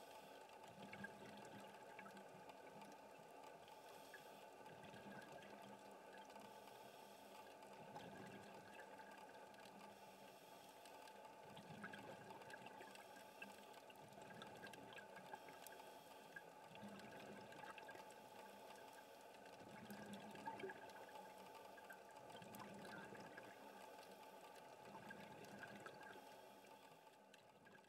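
Faint underwater ambience picked up inside a scuba camera housing: a steady hum with soft bubbling swells every few seconds, fading out near the end.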